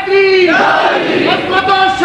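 A man's voice chanting in long held notes that dip and slide in pitch, the melodic sung delivery of a preacher at the microphone.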